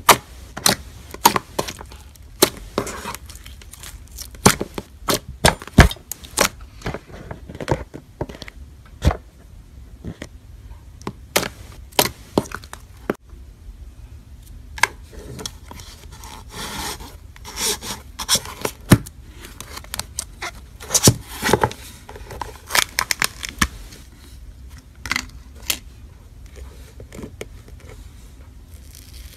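Fingers poking and squeezing slime, giving many sharp, irregular clicks and pops, thinning out near the end.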